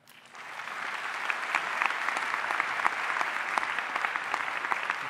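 Audience applauding, with many hands clapping. It builds over the first second and then holds steady.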